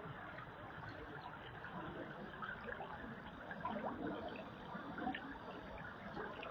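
Shallow creek water flowing and trickling over stones, a steady babble with many small splashes and gurgles.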